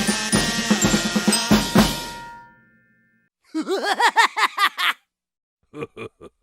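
Comedy sound effects in succession: a drum kit playing a busy fill of snare and bass drum hits, with cymbal ringing that fades away. Then comes a warbling cartoon tone that rises and falls about six times a second for a second and a half. Near the end a quick run of short clipped pulses begins.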